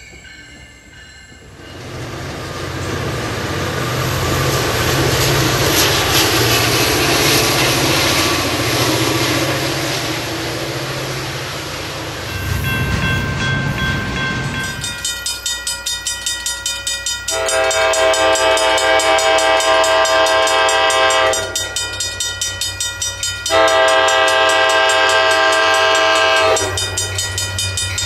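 A commuter train passes with a steady rumble of engine and wheels. Then a railroad crossing bell rings with a steady pulse while an approaching commuter train's locomotive sounds two long horn blasts, a third starting near the end.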